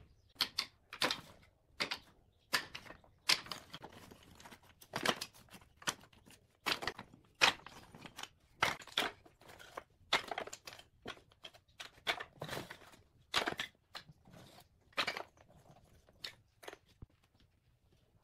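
Small wooden offcut blocks tossed one by one into a wooden crate, knocking against the crate and each other in an irregular run of hollow wooden clacks, about one or two a second, thinning out near the end.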